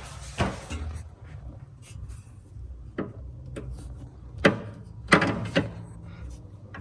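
A handful of sharp metallic knocks and clinks from hand tools and suspension parts being handled while a sway bar end link is fitted, the loudest about four and a half and five seconds in.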